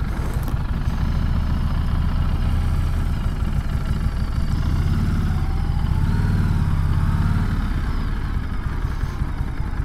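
Harley-Davidson motorcycle engine running at low riding speed, its revs rising a little past the middle and easing off again toward the end.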